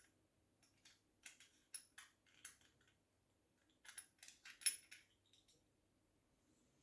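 Light metallic clicks and clinks of a just-opened watch caseback and a caseback opener tool being handled, in two short clusters, the sharpest click a little under five seconds in.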